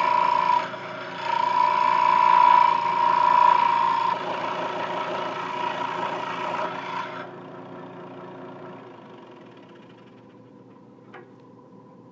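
Scroll saw running, its blade cutting through wood for a mortise. The cut is loudest in the first four seconds with a brief dip near the start, then eases off and stops about seven seconds in, leaving a faint low hum.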